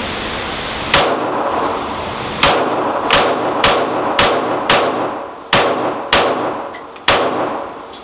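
FN 509 pistol fired in a string of nine shots, paced unevenly about half a second to a second and a half apart, with a pause before the last two.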